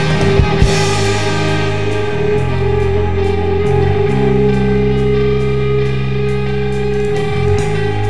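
Alternative rock band recording: a few hard drum hits at the very start give way to sustained guitar and bass chords, the bass note shifting every second or two, with a light steady tick of cymbal on top.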